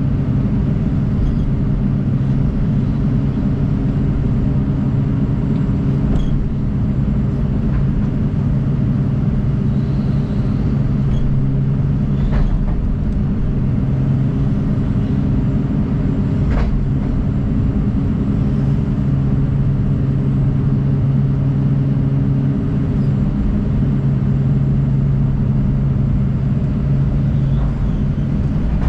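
John Deere 250G excavator's diesel engine running steadily under a trenching workload. A few brief sharp clicks or knocks sound over it.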